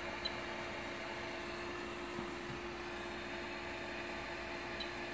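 Anycubic i3 Mega 3D printer's cooling fans, chiefly the power-supply fan, running with a steady whir and a constant hum. A faint tick comes just after the start and another near the end.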